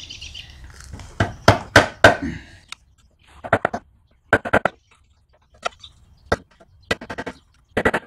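Socket wrench clicking and clanking on the steel muffler bolts of a Craftsman push mower's engine as the bolts are worked loose: short clusters of sharp metallic clicks with brief pauses between them.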